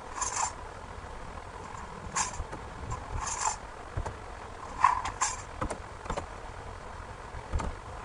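Cutlery drawer sound effect playing: a string of irregular metallic clatters and rattles of knives and forks, loudest about five seconds in.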